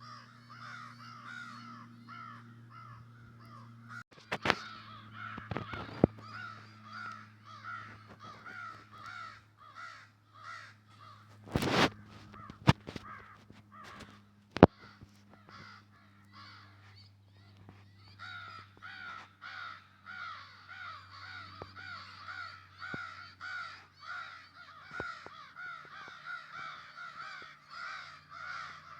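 A baby bird calling over and over, short harsh calls about two a second with no let-up. A few sharp knocks break in, the loudest about twelve and fifteen seconds in.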